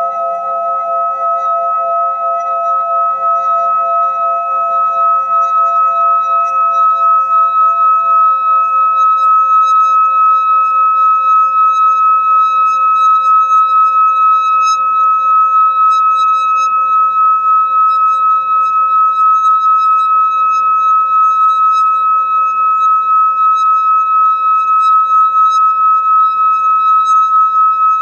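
Metal singing bowl sounding one sustained ringing tone with a slow, regular wobble, kept going by rubbing its rim. The tone swells over the first several seconds and then holds steady.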